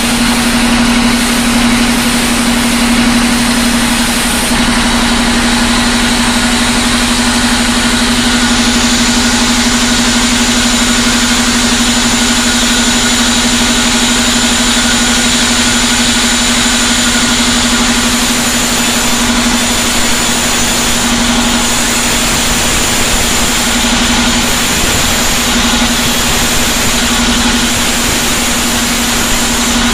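Vertical band sawmill running with a loud, steady hum while a large jackfruit log is pushed through the blade.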